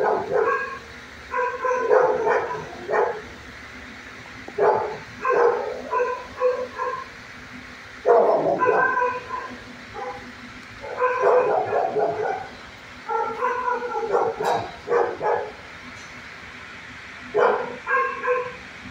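Dog barking in repeated bursts of several quick barks, with pauses of a second or two between the bursts.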